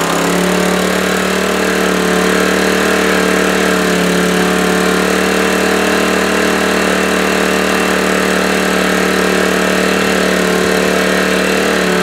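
Sportsman 800-watt inverter generator's small gasoline engine running steadily, seconds after a pull start, with the choke still on: a cold start, its pitch wavering slightly.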